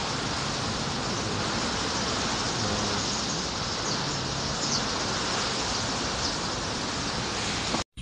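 Typhoon wind and heavy rain: a steady rush of rain and gusting wind through trees, cutting off abruptly just before the end.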